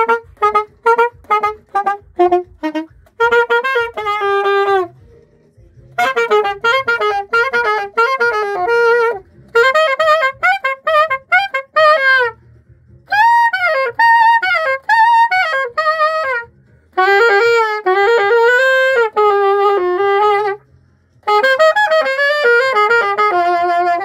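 Alto saxophone played unaccompanied: short detached notes at first, then flowing runs in phrases of a few seconds, with brief pauses between phrases.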